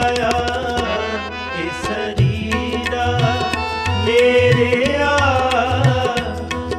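Sikh kirtan music without words: tabla playing a steady rhythm under a sustained melody.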